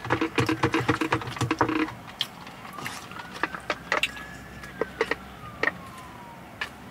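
Close-miked eating noises: chewing, with dense wet mouth clicks for the first two seconds, then scattered sharper clicks. A faint thin whine rises and falls in the background.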